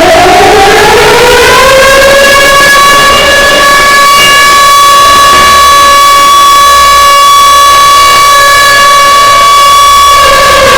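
Loud civil defense siren winding up in pitch over the first couple of seconds, then holding one steady tone and starting to wind down near the end. It is the siren that marks a moment of silence.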